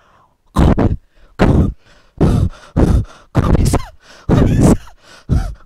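A man's voice making a quick series of short, breathy gasps and exclamations of surprise, about eight in all, each under half a second.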